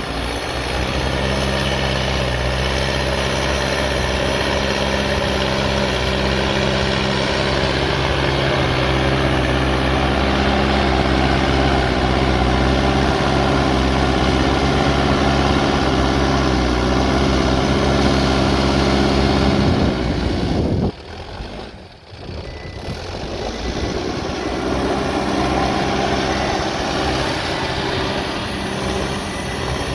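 Backhoe loader's diesel engine running steadily while it works. About two-thirds of the way through, the sound drops away suddenly for a couple of seconds, then the engine noise comes back.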